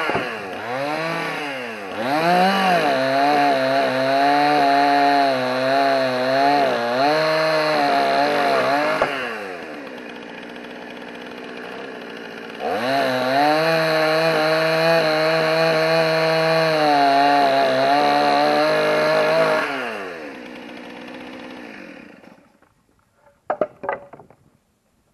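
Two-stroke chainsaw cutting hickory slabs, its engine pitch wavering and sagging under load. It drops back to a lower, steadier note for a few seconds about nine seconds in, then cuts again, and winds down and goes quiet a couple of seconds after twenty seconds. A few sharp clicks follow near the end.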